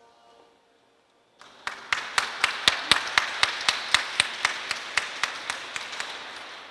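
Audience applause after a choir's song ends, starting about a second and a half in, with one set of hands clapping close by in a steady beat of about four claps a second; it fades near the end.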